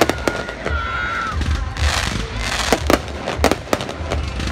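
Aerial fireworks bursting: a string of sharp bangs and pops at uneven intervals over a continuous crackle of burning stars.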